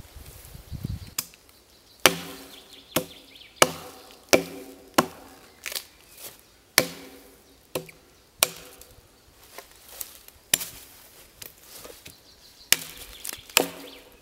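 Axe chopping into a log: about fifteen sharp, solid blows at roughly one a second, several with a brief ringing after the strike.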